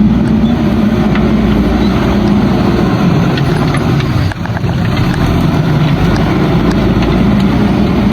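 Diesel engine of a JCB backhoe loader running steadily under load, with a brief dip in level about four seconds in.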